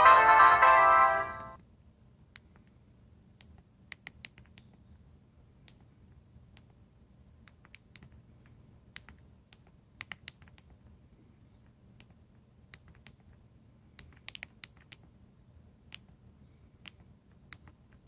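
A polyphonic ringtone melody from an LG Rumor phone's speaker plays for about the first second and a half and cuts off. Then comes a string of short, irregular clicks as the phone's keys are pressed to step through its menus.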